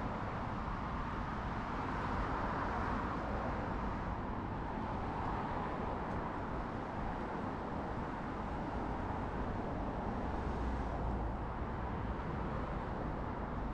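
Steady road traffic on a wide multi-lane city road: a continuous hiss of cars passing with a low engine and tyre rumble underneath.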